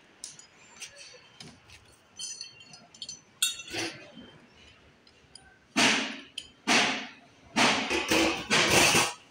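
Metal clinks and knocks on the stainless-steel body of a mobile tandoor: light taps first, then several loud, ringing strikes in the last few seconds.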